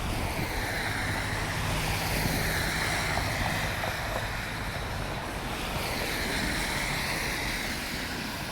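Steady rush of wind on the microphone mixed with traffic passing on a snowy city street, swelling and easing twice, with a low steady hum in the first half.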